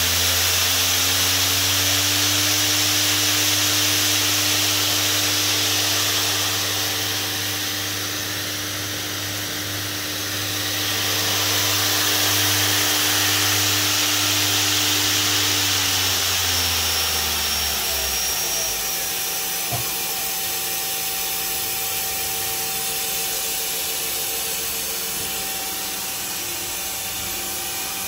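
Mori Seiki MT-1500SZ CNC turn-mill center running, with a steady hum and whine from its spindle drive over a broad machine hiss. About sixteen seconds in, the hum and whine fall in pitch and die away as the spindle spins down, while the hiss carries on.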